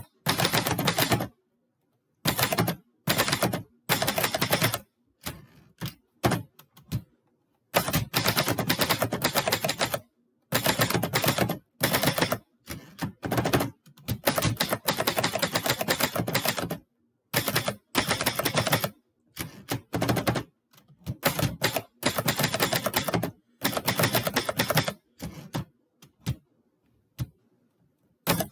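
Typewriter being typed on: fast runs of keystrokes, each lasting a second or a few seconds, with short pauses between them.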